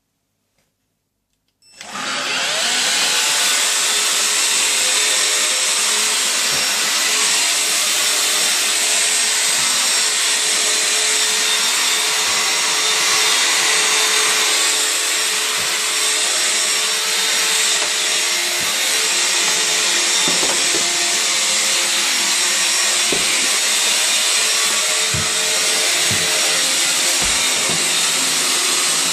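Electrolux Ergorapido ERGO12 cordless stick vacuum switching on about two seconds in, its motor spinning up with a brief rising whine and then running steadily. A few short low knocks come in the second half.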